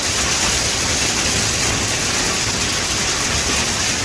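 Heavy monsoon downpour driven by strong winds: a loud, steady, dense rush of rain noise.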